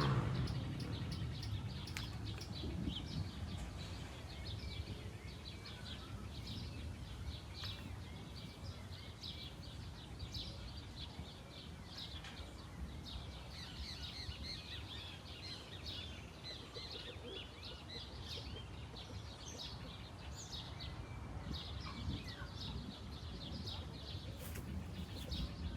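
A chorus of small birds chirping and twittering without pause, with a steady low rumble in the background.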